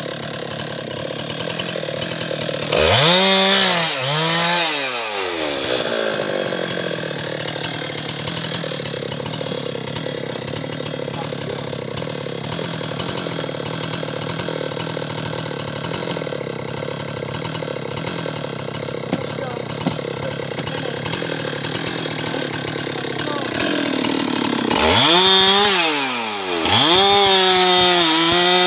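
Husqvarna 390 XP two-stroke chainsaw idling, blipped up to speed twice in quick succession about three seconds in, then revved again near the end and held at a high, steady pitch.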